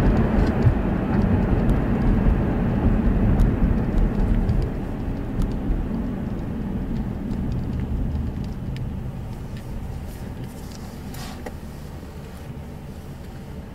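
Car interior noise: a steady low road-and-engine rumble from a car on the move, fading gradually over the second half.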